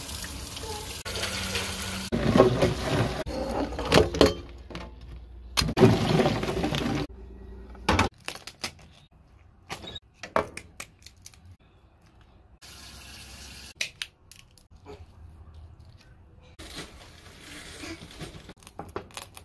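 Water running from a tap into a stainless steel sink for the first several seconds. It then gives way to scattered sharp cracks and clicks as a cooked lobster's shell is broken apart by hand and snipped with kitchen shears.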